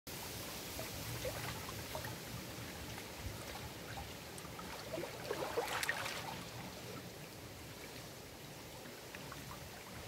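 Small lake waves lapping and splashing against the shoreline rocks in a steady wash of water, with a slightly louder run of splashes about five to six seconds in.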